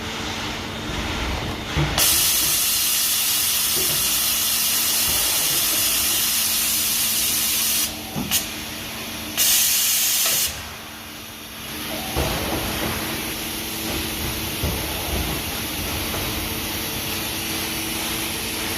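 Mori Seiki MT3000 CNC multitasking lathe running with a steady hum, while a loud jet hiss switches on about two seconds in, runs for about six seconds, stops, then comes back briefly for about a second.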